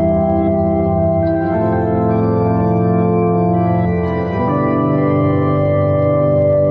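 Background music of slow, sustained organ chords, moving to a new chord about a second and a half in and again past the four-second mark.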